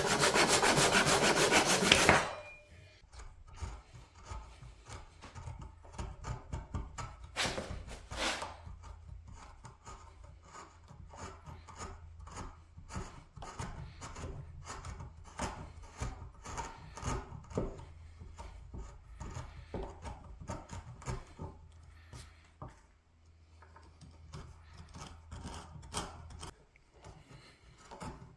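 A hand saw cutting a wooden block in fast strokes that stop about two seconds in. Then a wood chisel pares and carves into the maple mallet head in many short, quiet scraping cuts, with a faint steady low hum underneath.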